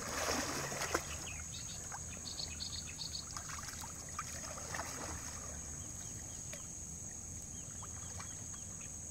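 Water splashing and dripping as a wet cast net is hauled in by its rope and lifted from shallow floodwater by a wading fisherman, loudest in the first second, then scattered small splashes and trickles. A steady high insect drone runs behind it.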